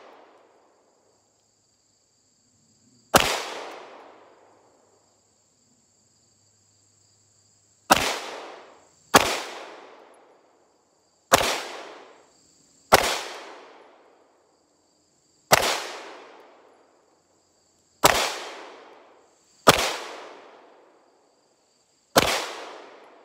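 Walther PPQ 9mm pistol firing unsuppressed: nine single shots at an uneven, unhurried pace, each followed by a ringing echo that dies away in about a second.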